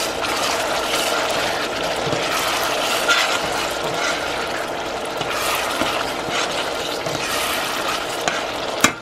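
Yam pottage in palm oil and pepper sauce cooking in a stainless steel pot with a steady bubbling sizzle, stirred with a metal spoon; one sharp knock near the end.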